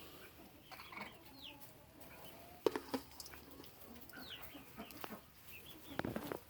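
Domestic hens clucking softly in short, scattered calls, with a few sharp knocks, the loudest about two and a half seconds in and near the end.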